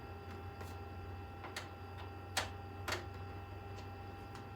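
A few scattered light clicks and taps, about five, irregularly spaced, the sound of small parts and a screwdriver being handled while working on a PC case. A steady low hum runs underneath.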